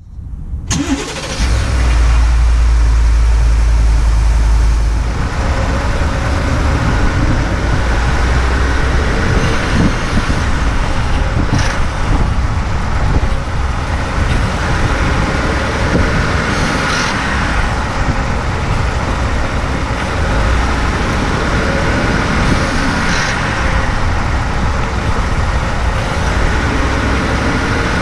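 2018 Ford F-150 running with a steady low rumble, heaviest in the first few seconds. It has a few brief sharper sounds spaced about five or six seconds apart. The owner is trying to catch a gentle rattle or clack from near the transmission that comes when easing off the throttle in the lower gears.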